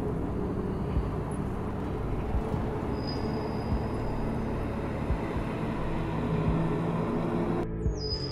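Street traffic ambience: a steady rumble of road vehicles. A thin high tone comes in about three seconds in, and the traffic noise cuts off near the end.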